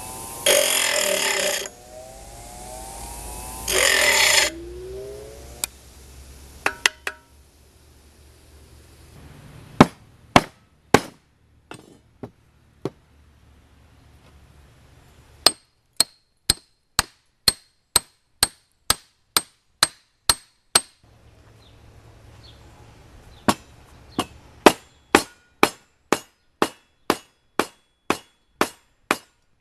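Hammer striking metal in a steady series of sharp, ringing blows, about two a second, after two brief bursts of a small power tool spinning up.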